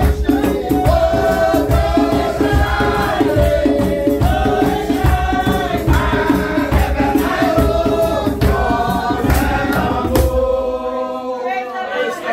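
A congregation singing a hymn together over a steady low beat; the beat drops out about ten seconds in while the voices carry on more quietly.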